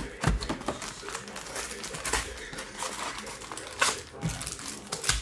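Cardboard trading-card hobby box being opened and its foil-wrapped packs pulled out: irregular clicks, knocks and crinkling of cardboard and foil wrappers.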